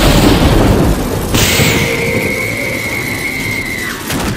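A cartoon sound-effect blast that rumbles away over about a second. About a second and a half in, a high steady ringing tone starts suddenly, holds for about two and a half seconds and then cuts off.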